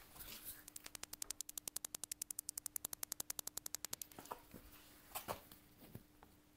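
BMW E46 rear ultrasonic parking (PDC) sensor clicking rapidly and evenly, about ten clicks a second, with the ignition on and the car in reverse; audible clicking shows that the sensor is working. The clicking stops about four seconds in, followed by a few faint taps of fingers on the bumper.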